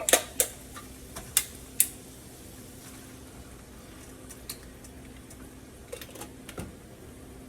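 Sharp clicks and knocks of a container and utensil against a pan as tomato sauce is added to browned sausage: four in the first two seconds, a few softer ones about six seconds in, over a faint steady hum.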